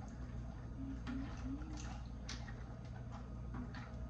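Wooden spoon stirring penne in a stainless steel pot of boiling water, knocking lightly against the pot a few times, over a low steady hum.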